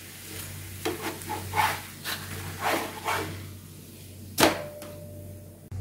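Wooden spatula scraping and tapping against a frying pan as a cooked paratha is lifted out: a run of light scrapes and knocks, then one sharp clank about four and a half seconds in, with a short ringing after it.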